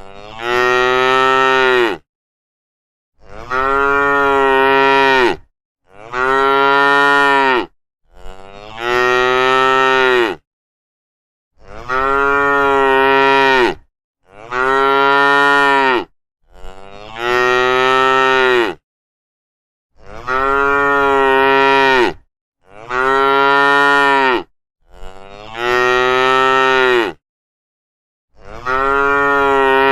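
Cattle mooing over and over: about eleven long, low moos of roughly two seconds each, nearly identical in shape, with dead silence between them.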